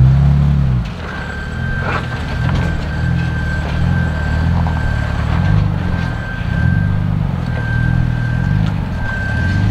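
Jeep Wrangler JK Unlimited's engine working at low speed as it crawls over boulders. It is loudest in the first second, then keeps pulsing as the throttle comes on and off. A thin, steady high-pitched tone runs alongside from about a second in.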